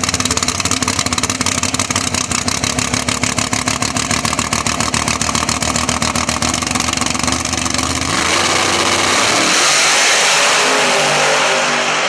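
Drag race car engine running with a choppy, rapid pulse. About eight seconds in it goes to full throttle, rising in pitch into a loud roar that peaks and then starts to fade as the car pulls away down the strip.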